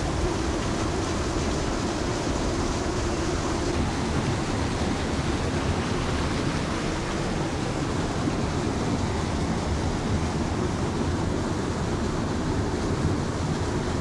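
Waterfall rushing steadily: the Alb stream cascading through its gorge at the Menzenschwand waterfall.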